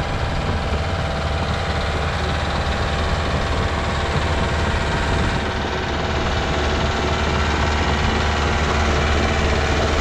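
Heavy diesel engine of earthmoving equipment running steadily, a loud constant drone with a strong low hum.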